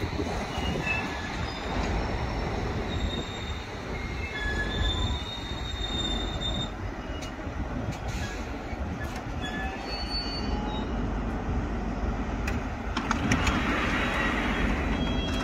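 London Underground District Line S7 Stock train drawing to a stop at the platform, with a low rumble and short high squeals from wheels and brakes. About thirteen seconds in, its doors open with a rush of noise, and a high two-tone beep sounds near the end.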